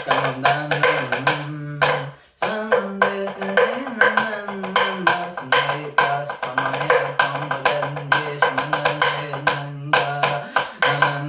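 Music: a song with a fast, busy percussion beat over a steady bass line. It drops out briefly about two seconds in.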